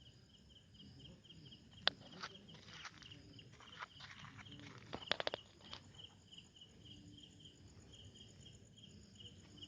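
Steady high insect chirping, pulsing about three times a second. A sharp click about two seconds in and a quick run of several clicks around five seconds cut through it.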